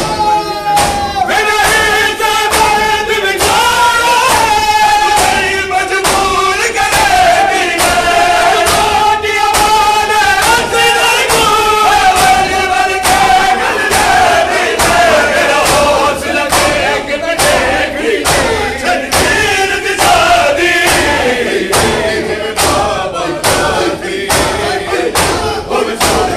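Men chanting a noha (a Shia lament) over a steady beat of open-handed chest strikes from a crowd of mourners doing matam.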